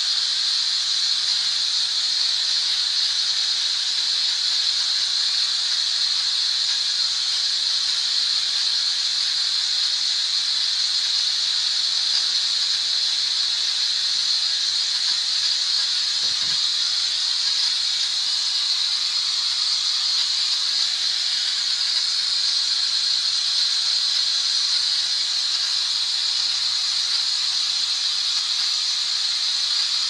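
White noise played continuously as a sleep and relaxation sound: a steady, high-pitched hiss that does not change.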